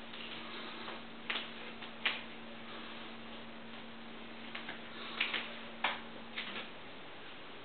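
Scattered sharp taps and clicks, about seven at uneven intervals, over steady room hiss and a low hum that stops about six and a half seconds in.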